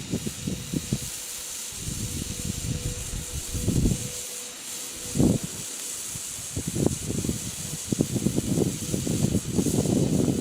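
Hand-held fountain firework burning with a steady spraying hiss, over irregular low rumbling gusts.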